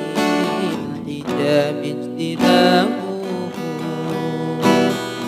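Background music: plucked strings playing an instrumental passage between the sung lines of an Arabic devotional song.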